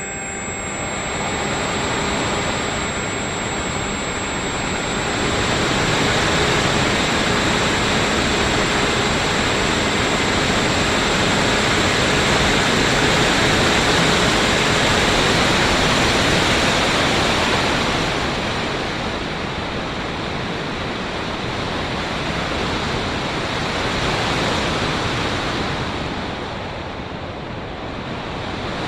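Airflow rushing over the microphone of an RC plane in flight, a steady noise that swells and eases. The faint whine of its 2216 2000kv brushless motor shows through in the first few seconds.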